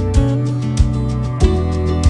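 Background music: held notes over a steady beat of roughly one and a half beats a second.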